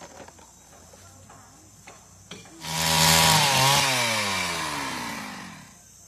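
A small engine starts loudly about two and a half seconds in, holds its pitch briefly, then winds down, its pitch falling steadily as it fades over about three seconds.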